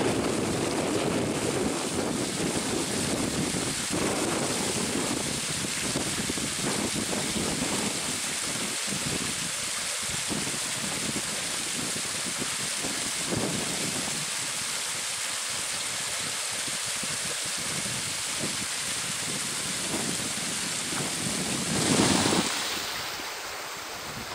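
Wind buffeting the camera microphone in irregular gusts, a steady rushing noise with low rumbles, with one stronger gust near the end.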